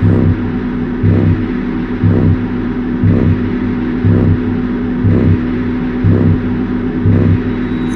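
Slow electronic music: a deep bass pulse about once a second over a sustained low drone.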